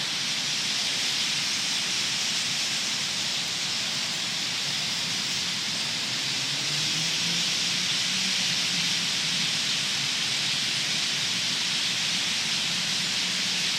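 A huge flock of birds chattering all at once, the calls blending into a steady hiss.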